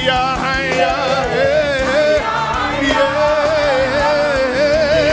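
Live gospel worship music: a band playing under a sustained lead melody that wavers and slides in pitch, with no words sung.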